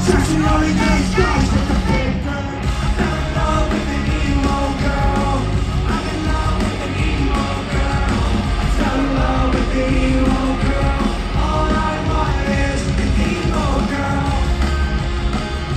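Live rock concert music, loud and unbroken, with a heavy bass and drums and singing and yelling voices over the band.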